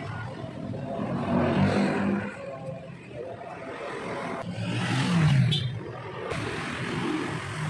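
Engine noise of passing motor vehicles, swelling and fading, loudest about five seconds in.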